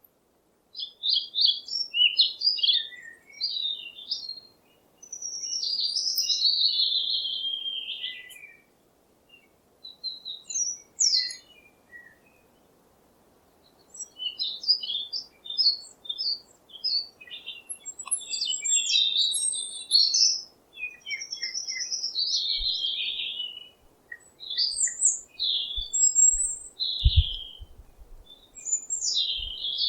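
Songbirds chirping and singing in short, varied phrases of high chirps and trills, with brief pauses between bursts. There is a faint background hiss, and a few low thumps near the end.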